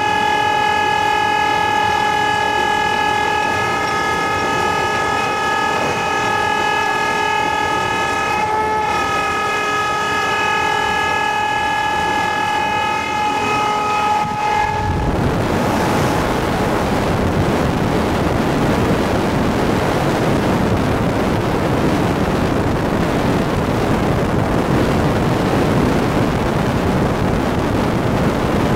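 Electric locomotive shrieking constantly: a steady, high-pitched, multi-tone whine over the rumble of the train at speed in the cab. About halfway through, the whine cuts off and a deafening roar of wind and wheels on rail takes over, heard from outside the cab window.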